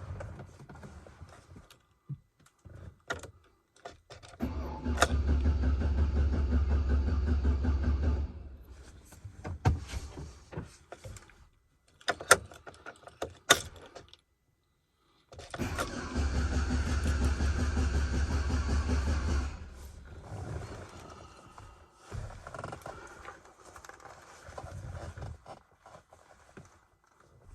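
Chevrolet Silverado's starter cranking the engine on a nearly dead battery: two cranking attempts of about four seconds each, both stopping without the engine running on. Keys jangle and the ignition clicks between them.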